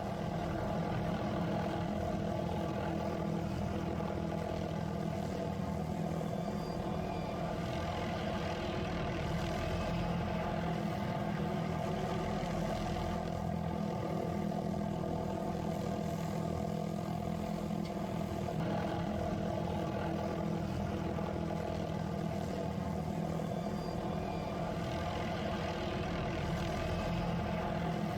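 Helicopter with an aerial tree-trimming saw hanging beneath it, running with a steady, unchanging drone.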